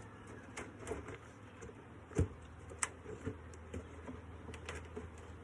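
Honeybees buzzing steadily around the hive, with scattered clicks and knocks over them, the sharpest a little over two seconds in.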